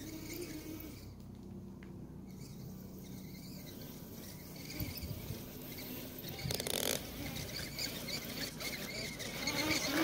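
Radio-controlled model snowcat driving over snow: a steady motor and gearbox whine with the tracks churning and crunching through the snow, getting louder as it closes in and loudest near the end.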